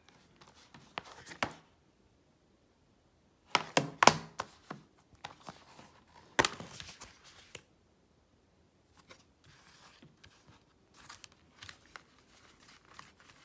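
Blu-ray box-set season case being handled, giving a series of sharp clicks, taps and knocks. The loudest come in a cluster about three and a half to four seconds in, then one knock about six seconds in, with softer taps and rustling later.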